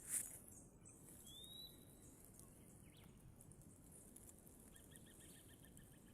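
Quiet countryside ambience with a short high hiss at the start, a single rising whistled bird call about a second in, and a fast run of evenly spaced chirps, about ten a second, near the end.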